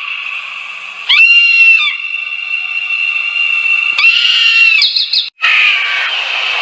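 Eagle giving loud, high-pitched screaming calls, two strong ones about a second in and about four seconds in, over a steady high-pitched background hiss. The sound cuts out for an instant near the end, as at a splice in the recording.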